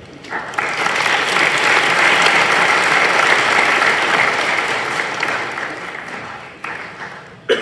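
Audience of schoolchildren and adults applauding, swelling in the first second and slowly tapering off near the end, followed by a single sharp knock.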